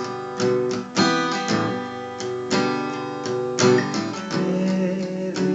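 Acoustic guitar strumming chords, a stroke about every half second, as the accompaniment to a worship song between sung lines.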